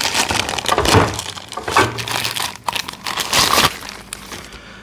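Crinkling plastic with sharp clicks and knocks, repeated several times, as heavy steel 1-inch impact sockets are worked out of their carrying case.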